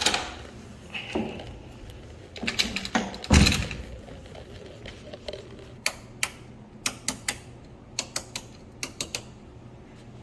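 A wooden door being opened, with a heavy thud about three seconds in, then about a dozen sharp clicks as a row of light switches is flipped on one after another.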